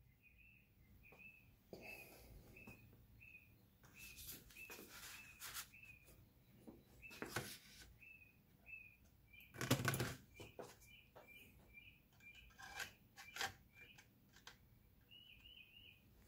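A small bird chirps over and over, a short high chirp about twice a second. Over it, hands set plastic model-truck parts down on a cutting mat with faint clicks and knocks, the loudest about ten seconds in, as the cab is fitted onto the chassis.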